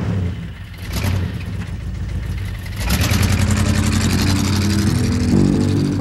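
Steady low engine rumble of street traffic, growing louder about halfway through. Low bass notes come in near the end.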